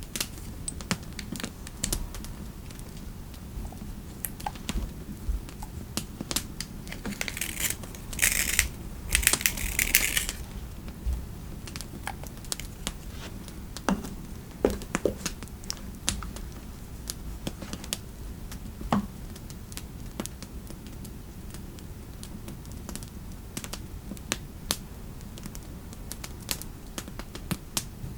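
Computer keyboard typing in irregular clicks, with a couple of seconds of rustling about eight seconds in, over a steady low fireplace ambience.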